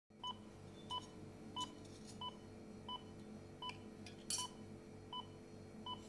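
Heart monitor beeping steadily, about three short beeps every two seconds, over a low hum, with a short hiss a little after four seconds in.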